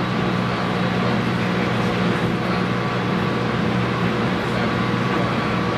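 Cabin noise of a JR 719-series electric multiple unit running, a steady rumble with a held motor hum and whine; this unit's motor sounds abnormal, unlike other 719s.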